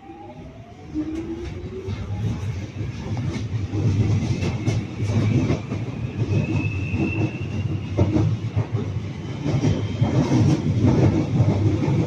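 London Underground Jubilee line 1996 Stock train pulling away from a station, heard from inside the carriage. The traction motors whine in rising tones as it starts. Then the low rumble of the carriage and the clicking of wheels over the rails grow louder as it gathers speed.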